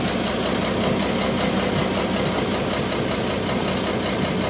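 Houseboat engine running steadily underway, a constant low drone with a steady hiss over it.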